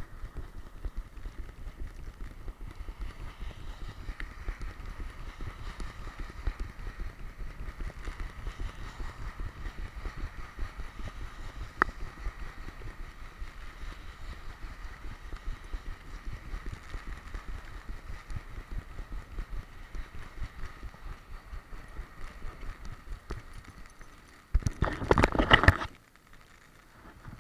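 Action camera worn by a running boxer dog, jostled by her gait: a fast, steady rhythm of low bumps and thuds. The rhythm stops near the end, followed by a loud rustling burst about a second and a half long.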